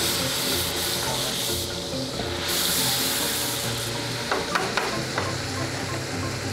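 Skirt steak sizzling steadily in butter and olive oil in a skillet. A little past the middle come a few sharp clicks of the metal tongs against the pan.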